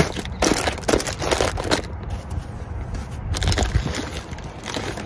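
Rummaging through gear in a storage bin: irregular rustling and crinkling of a plastic pet-food bag and other packaging, with scrapes and small knocks as items are moved.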